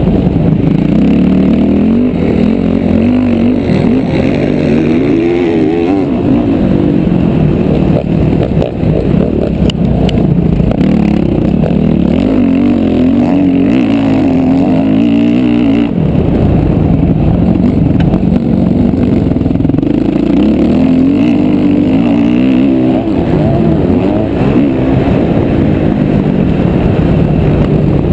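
Motocross bike engine heard from on board, revving hard and dropping back over and over as it is ridden around a dirt track: pitch climbs through the gears, then falls away into the corners.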